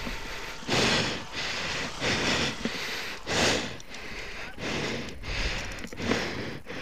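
A person breathing hard close to the microphone: a string of noisy breaths roughly a second apart.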